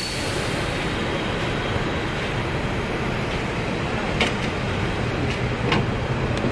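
Diesel bus engine idling with a steady low rumble, with a few sharp clicks and knocks in the second half as someone climbs the bus's door steps.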